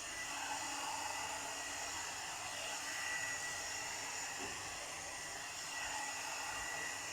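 3-in-1 hot-air blower brush (hair dryer brush) running steadily: an even blowing hiss with a faint whine through it.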